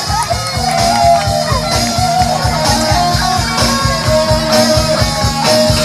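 Music with a fast, steady drum beat and a bending, guitar-like lead melody.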